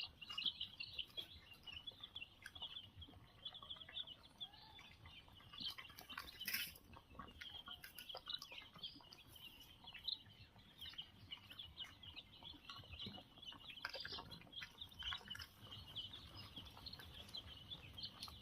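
A brooder full of five-day-old chicks peeping continuously, many high cheeps overlapping, with scattered short clicks.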